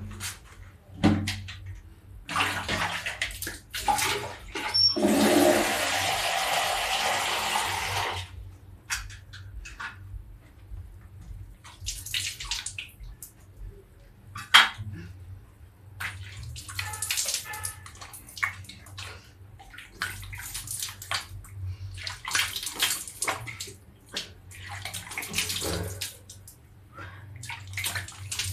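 Water poured from a jug and splashed by hand while washing the face over a basin: a steady pour for several seconds near the start, then on-and-off splashing and sloshing.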